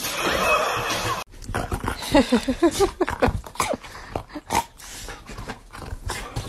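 A loud rushing noise cuts off abruptly about a second in. Then a dog gives a rapid run of short, high whining yelps, eager for a treat held just in front of it, followed by a few light knocks and thumps.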